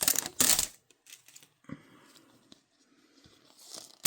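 Handling of a plastic Mini Brands capsule ball as it is unwrapped: a burst of plastic crinkling and clicking at the start, then scattered small clicks and a brief rustle near the end.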